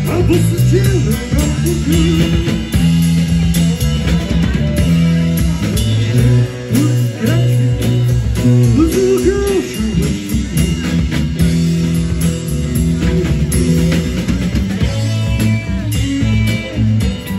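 Live rock band playing amplified: electric guitar with bent, sliding lead notes over sustained low bass notes and a drum kit keeping a steady beat.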